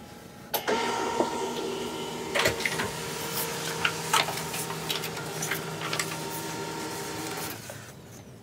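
Home all-in-one printer running a job: it starts with a click about half a second in, then runs with a steady motor whine and scattered clicks and clunks, winding down near the end.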